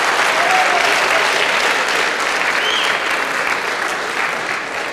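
Audience applauding, the clapping slowly tapering off.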